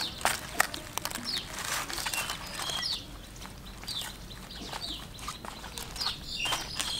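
Birds chirping short falling notes about once a second. Under them, wet clicks and scrapes come from a wooden stick being pushed through a raw clown featherback to force out its flesh, busiest in the first half.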